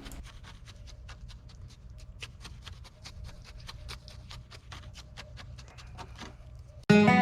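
Irregular light clicks, several a second, over a low rumble. Acoustic guitar music starts suddenly near the end and is much louder.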